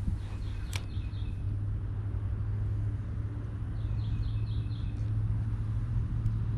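Steady low rumble of road traffic. Over it a bird calls twice, each time a short run of about five quick high chirps.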